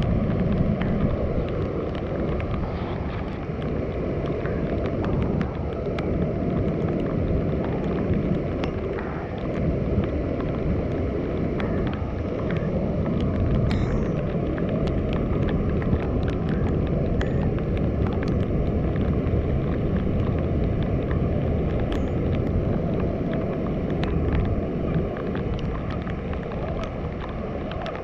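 Steady roar of a river waterfall and its rapids, a dense low rush with wind buffeting the microphone.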